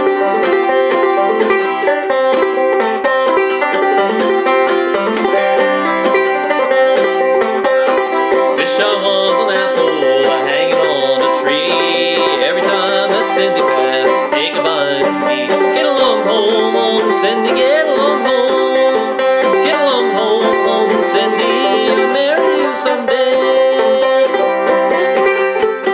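A 1926 Gibson ball-bearing tone-ring banjo played clawhammer style with drop-thumb, a steady stream of plucked notes. A man's voice sings along through the middle.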